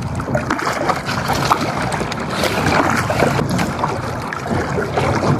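Seawater sloshing and splashing around a diver at the surface, with a few small knocks from handled gear.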